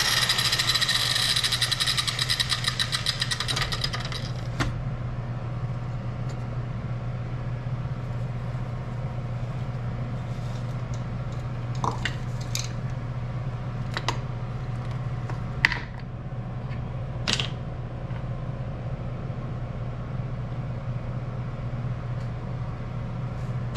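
A power tool running, cut off about four and a half seconds in. After that a steady low hum with a few light metal clinks and taps.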